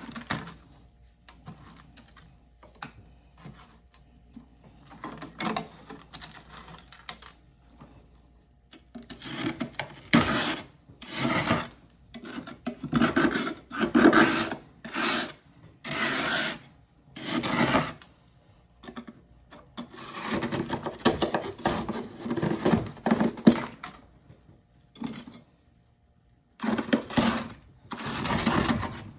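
Humidifier freezer frost chunks crunching and scraping in repeated short, crisp bursts, after several seconds of faint clicks.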